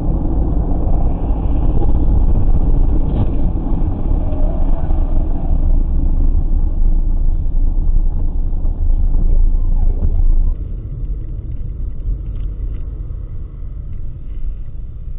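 Steady low road and engine rumble inside a moving car, heard through a dashcam microphone. About ten seconds in, it drops suddenly to a quieter cabin rumble with a few light clicks.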